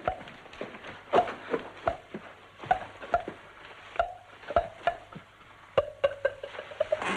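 Table tennis ball clicking off paddles and the table in a rally, a few sharp hits a second, coming quicker near the end.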